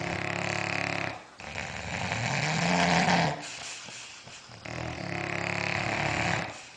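A dog snoring in slow, long rasping breaths, three in all. The middle breath carries a low tone that rises and then falls in pitch.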